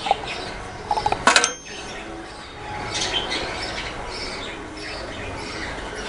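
A few sharp knocks in the first second and a half as a cut bamboo tube is handled, over small birds chirping in the background.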